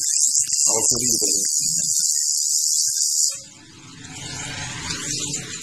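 Coil tattoo machine buzzing steadily at a high pitch as it works on skin, stopping a little over three seconds in and starting up again at the very end.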